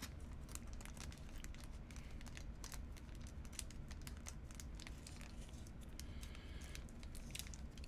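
Trading cards and their plastic packaging being handled: a run of light, irregular crinkles and small ticks over a steady low hum.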